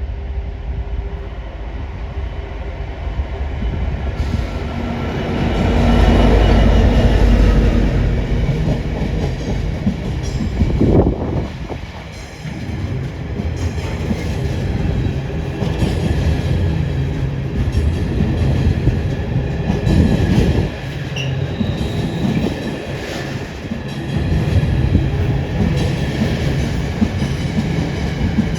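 A Class 66 diesel locomotive passes at speed, loudest about six to eight seconds in. A long rake of loaded container wagons follows, rolling by steadily with wheel noise that swells and fades as each wagon goes past.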